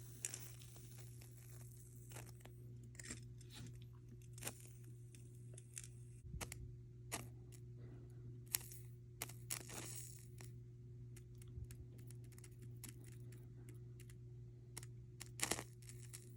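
Hot spring bubbling, with irregular small pops and crackles over a steady low hum.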